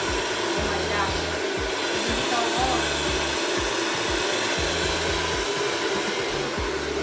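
Handheld hair dryer running steadily on high heat, blowing onto hair as it is brushed through.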